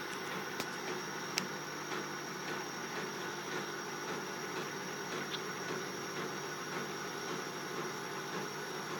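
Stepper motors of a CNC hot-wire foam cutter running steadily as they drive the carriages, a constant whine over a hiss, with two faint clicks about a second in.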